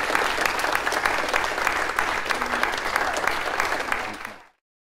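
Audience applauding, a dense patter of many hands clapping, fading out near the end and cutting to silence.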